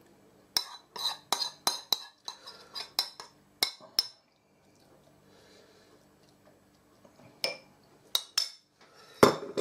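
Metal teaspoon clinking against a china bowl and a glass dessert dish as prawns in sauce are spooned out: a quick run of about ten clinks over the first four seconds, a few more later, and a louder knock near the end.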